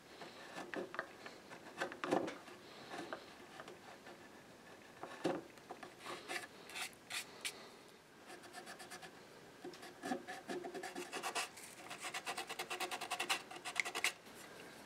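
A chisel paring and scraping a small wooden veneer patch flush, in scattered separate strokes. About ten seconds in, fast back-and-forth sanding of the patched wood with a folded piece of sandpaper takes over.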